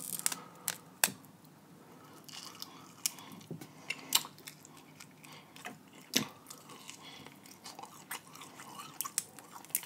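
A person eating snow crab legs close to the microphone: soft wet chewing and mouth sounds, broken by scattered sharp clicks and snaps as the crab meat is pulled from the shell and bitten.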